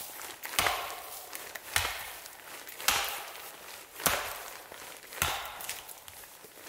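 Axe chopping into wood with five even strokes, about one a second, each a sharp thunk with a short rustle after it.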